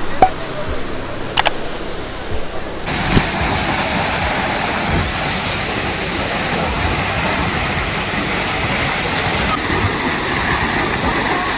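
Steady rushing roar of Soochipara waterfall's falling water. For about the first three seconds it is duller and carries two sharp clicks; then the full, bright rush comes in suddenly.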